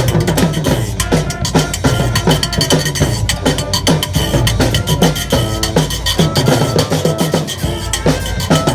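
Street brass band playing live: a fast, steady drum beat of snare and bass drum with clacking percussion, under held horn notes. The low bass drops out for a moment near the end.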